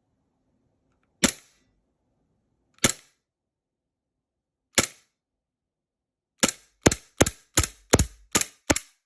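Airsoft Glock 18C gas blowback pistol firing: three single shots a couple of seconds apart, then a quick string of seven shots at about two and a half a second.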